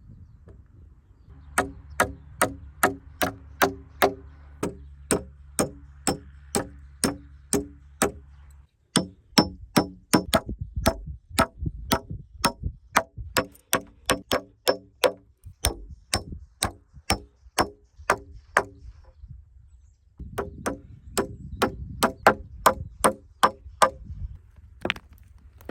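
Hammer striking in rapid, even blows, about three a second, each blow with a short metallic ring. The blows come in three runs with brief breaks between them.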